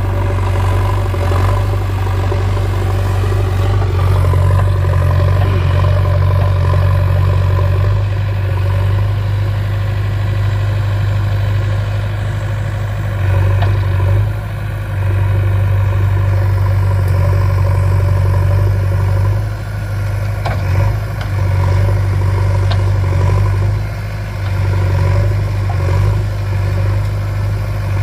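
Diesel engine of a JCB backhoe loader running steadily under work, its note dipping briefly a few times as the load changes, with a few faint knocks.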